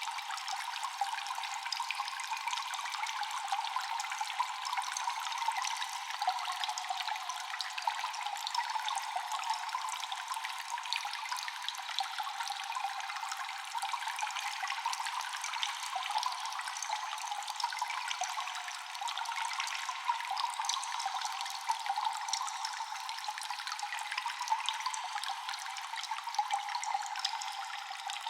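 Water dripping continuously in a cave, many drops falling over a steady trickle and echoing off the rock. There is no bass.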